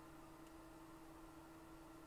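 Near silence: faint room tone with a steady low hum.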